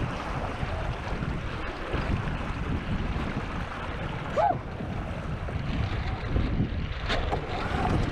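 Strong wind buffeting the microphone and water rushing past the hull of a J/22 sailboat sailing in high wind, with a brief rising squeak about halfway through.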